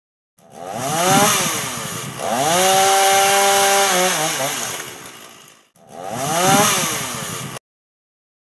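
Chainsaw engine revving up and down three times: a quick rise and fall, then a climb to high speed held for about two seconds before it drops away, then another rise that cuts off abruptly.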